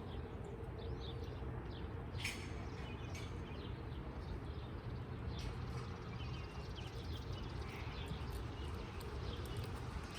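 Small birds chirping and calling over a steady low rumble, with a few sharp clicks, the loudest about two seconds in.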